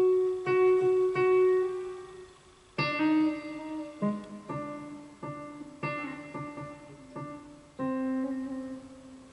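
Electric guitar played through a Roland guitar synthesizer on a piano voice: a few sustained piano notes, then a quick run of short notes that step from key to key. A guitar slide or bend comes out on the synth as discrete piano notes rather than a smooth pitch glide.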